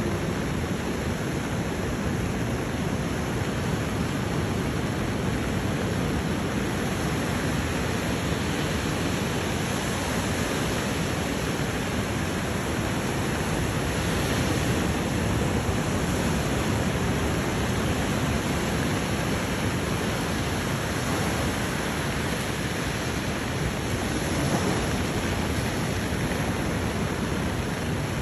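Steady rushing noise of ocean surf breaking on a beach, even and unbroken throughout.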